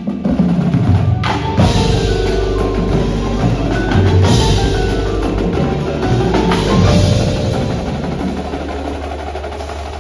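Percussive music: struck drum and wood-block-like hits over sustained low tones and held bell-like pitches, slowly getting quieter over the last few seconds.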